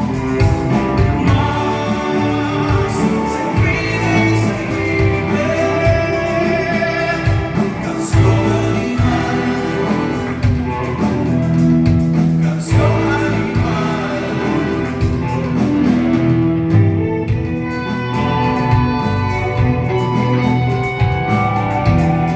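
A philharmonic orchestra playing a rock song live, with singing over the orchestra.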